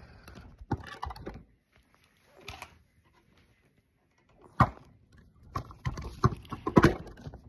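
Scattered knocks and bumps of a phone and items being handled on a bed tray table, with a quiet stretch in the middle and a cluster of knocks near the end.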